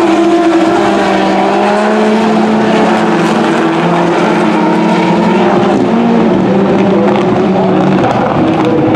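A pack of rallycross supercars, turbocharged four-cylinder racing engines, running hard together in a steady blended engine note that shifts slightly in pitch.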